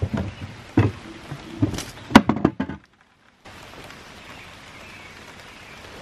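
A few sharp knocks and thuds in the first half, then, after a brief dropout, steady rain.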